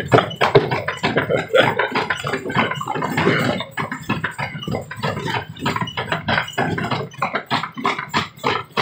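Horse-drawn carriage jolting over a rough old stone road, a dense, irregular clatter of rattles and knocks from the wheels and frame.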